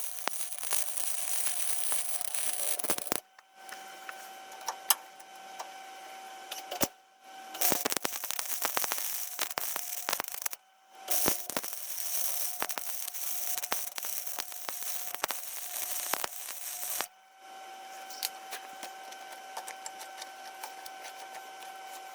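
Electric welder laying beads on the steel turn-signal mounts: three spells of crackling, sputtering hiss, a few seconds each, with a steady hum in the pauses between them.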